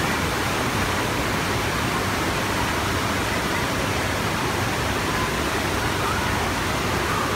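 Steady, loud rush of water from an indoor sheet-wave surf simulator, its pumped flow pouring continuously over the riding surface.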